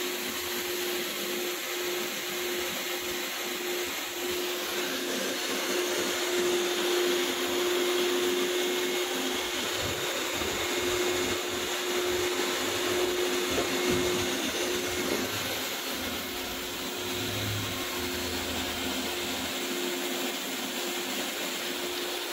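Commercial stainless-steel wet/dry vacuum with a carpet floor wand, running steadily as it sucks water out of a wet carpet. Its steady motor hum sits under a wide rushing hiss of air.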